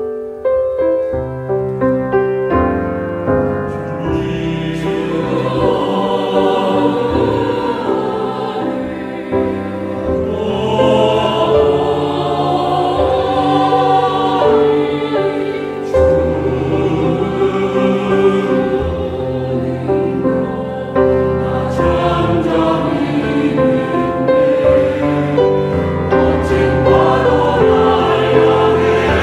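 Mixed church choir of men and women singing a hymn in Korean.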